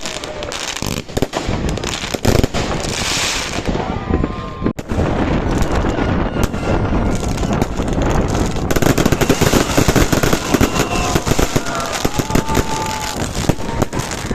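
New Year fireworks going off in a dense, rapid barrage of bangs and crackles, with voices in the crowd.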